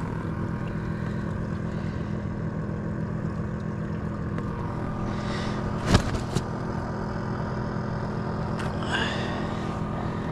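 A boat engine drones steadily at an even pitch. A sharp click sounds about six seconds in, with a smaller one just after it.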